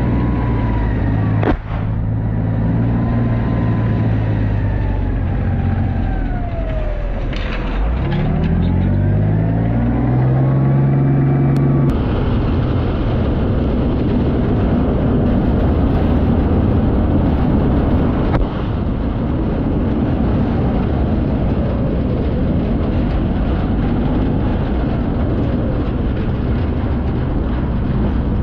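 Engine running loudly, its tones sliding down and back up over the first twelve seconds, then changing abruptly into a steadier, rougher sound.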